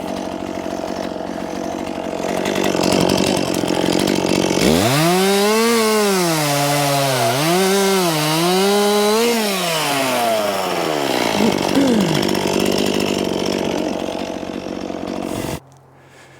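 Two-stroke chainsaw running. About five seconds in it is opened up and cuts, its pitch sagging and recovering several times as it loads up in the wood. The pitch then falls back, and the sound stops abruptly near the end.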